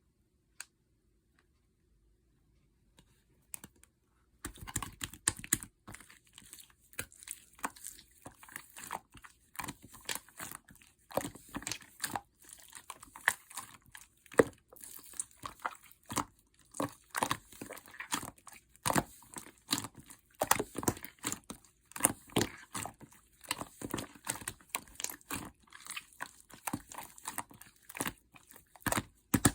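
Custard pudding slime being squished and worked by hand, giving a dense, irregular run of sticky clicks and crackles that starts about four seconds in after near silence.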